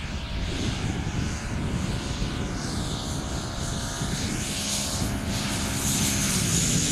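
Radio-controlled Pitts Special biplane with a Turnigy Rotamax 50cc-class electric motor, its motor and propeller whining steadily as it flies low and comes in to land, over a steady low rumble.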